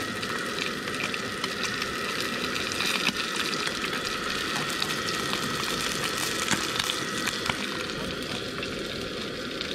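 Small whole fish frying in shallow oil in a frying pan, a steady sizzle full of small crackling pops.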